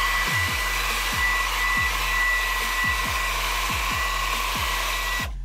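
Hand-held hot-air blower running, a steady rush of air with a high steady whine, switched off abruptly near the end. Electronic music with repeated falling bass sweeps plays under it.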